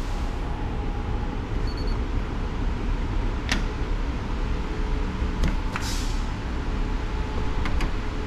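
Key-card door lock being worked. Faint short high beeps come about two seconds in as the card is held to the reader. Then the knob gives a sharp click as it is turned, and a few more latch and handle clicks follow, all over a steady low rumble.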